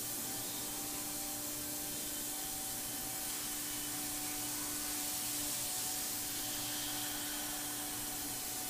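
A 5-axis CNC router spindle runs steadily, cutting a polyethylene part, under a continuous hiss of compressed air blown onto the cutter. A low steady hum sits under the hiss.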